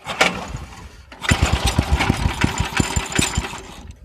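Small go-kart engine starting up about a second in, then running with rapid, even firing.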